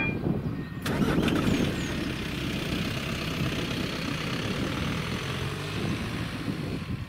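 The crossing's electronic warning bell ends right at the start. About a second in, a Volkswagen Golf estate car pulls away from standstill and drives across the level crossing, its engine and tyre noise fading as it moves off near the end.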